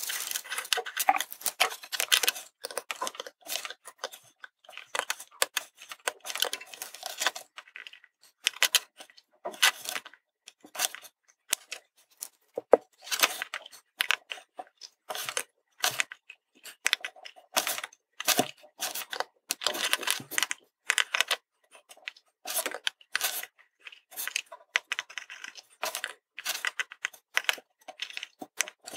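Irregular light clicks, crackles and rustling from handling small electronic parts: plastic surface-mount component tape being handled and tweezers tapping on circuit boards and a wooden tabletop. The sounds are densest in the first few seconds and come in scattered clusters after that.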